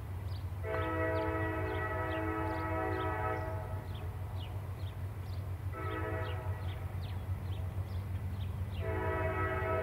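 EMD SD50 diesel locomotive, its 16-cylinder 645 engine rumbling steadily as it works a loaded train up a grade. Its multi-chime horn sounds the grade-crossing signal: a long blast, a short one, then another long blast starting near the end.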